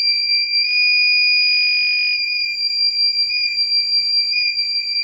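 Alarm buzzer on an Arduino transformer-monitoring board sounding one steady, high-pitched tone. It is the over-temperature alarm, which stays on until the temperature drops below 35 °C.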